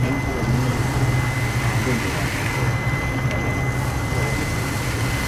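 Steady mechanical hum and rush with a thin, steady high whine, under indistinct voices.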